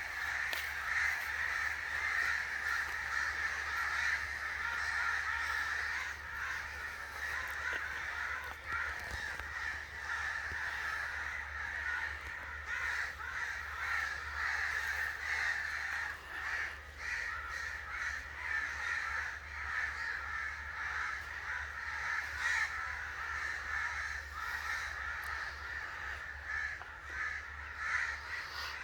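Crows cawing without a break, many harsh calls overlapping one another.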